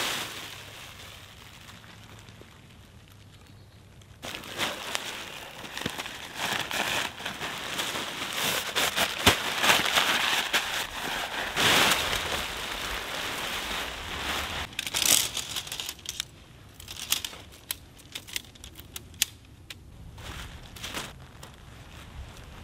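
A thin clear plastic ground sheet crinkling and rustling as it is shaken out and spread over leaf litter. The crinkling is thickest from about four seconds in until about sixteen seconds, then thins to scattered crinkles and rustles as the tent is laid on top.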